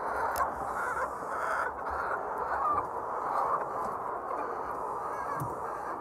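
A large flock of white laying hens clucking and calling all at once, a dense, continuous chatter with a few louder individual calls standing out.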